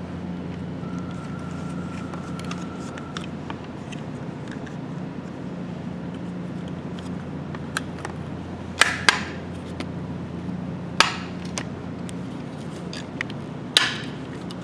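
Plastic parts of a GMT-400 interior door handle clicking and knocking as the handle is pushed into its housing and snapped into place. A few sharp clicks come about nine, eleven and fourteen seconds in, over a steady low hum.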